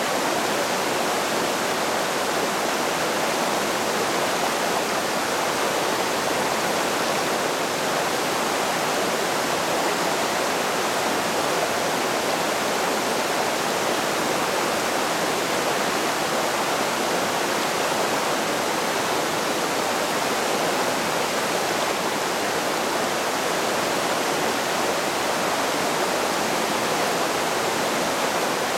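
Rocky mountain creek rushing over and between boulders in shallow whitewater rapids, a steady, unbroken rush of water.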